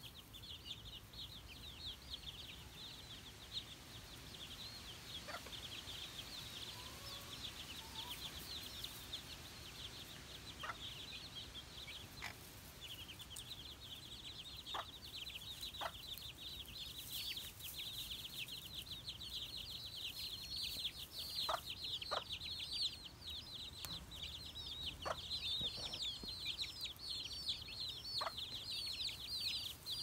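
A brood of young chicks peeping continuously: many rapid, high-pitched peeps overlapping, with a short lull about twelve seconds in. A few faint ticks are heard among them.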